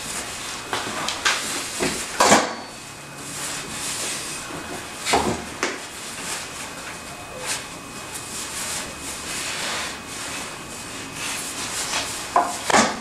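8/2 cotton warp yarn rustling and swishing as it is pulled hand over hand and chained off a wooden warping mill, with a few sharp wooden knocks, the loudest about two seconds in and another near the end.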